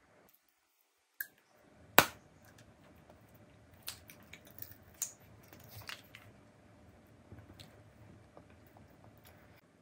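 Peach-shaped jelly candy being unwrapped from its thin plastic and eaten: a sharp snap about two seconds in, then a few seconds of scattered crackles and soft clicks, settling into quieter chewing sounds near the end.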